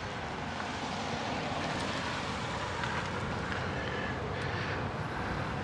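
Steady outdoor background noise: an even hum and hiss of traffic and wind, with no sudden events.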